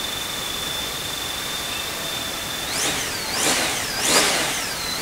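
Honda Gold Wing GL1800 trike's flat-six engine idling with a steady high whine, then blipped several times in quick succession from about three seconds in, the whine rising sharply and falling back with each rev. It has the stock factory exhaust, so it is not very loud.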